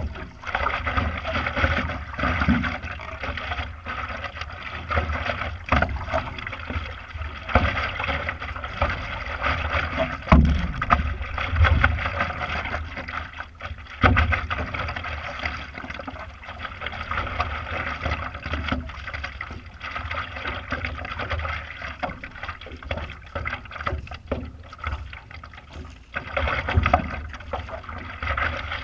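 Water splashing and lapping close against a stand-up paddleboard as a paddle dips and pulls through the water, with louder surges of splash every couple of seconds.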